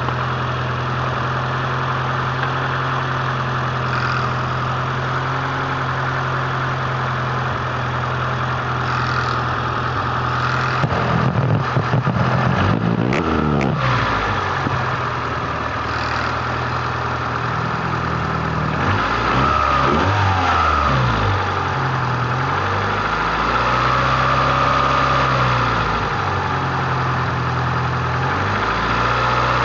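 Honda B18A1-block four-cylinder engine idling steadily, then revved up and let down several times, with a whine that rises and falls with engine speed. The owner suspects the whine is tied to the timing belt's tension.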